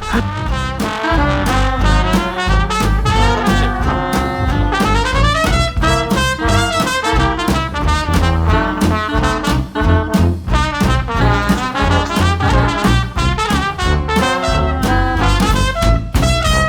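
Background music: upbeat swing-style jazz with brass horns over a steady beat.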